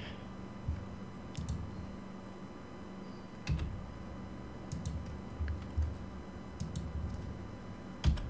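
Scattered clicks and taps from a computer keyboard and mouse, a handful of separate strokes spaced irregularly, with the loudest one near the end.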